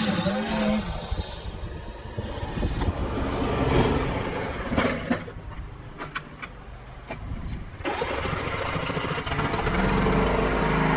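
Small gas engine of a yard tool running, then dying down, with a few clicks in the lull. It comes back on about eight seconds in and settles into a steady run near the end.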